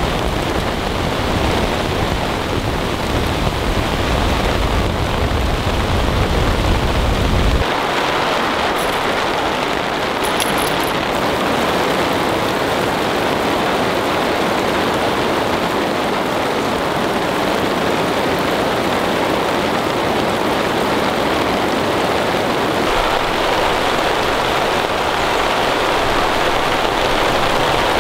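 Heavy downpour falling steadily on a camping tarp. For about the first eight seconds a low wind rumble on the microphone sits under it, then cuts off abruptly.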